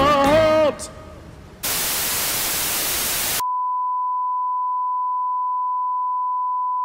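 The last held note of a song ends just under a second in. Then comes a burst of television static hiss for about two seconds, followed by a steady test-pattern beep: the reference tone that goes with television colour bars.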